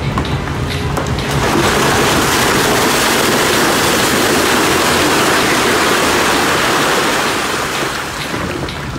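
A loud, steady rushing hiss that swells in about a second in and eases off near the end.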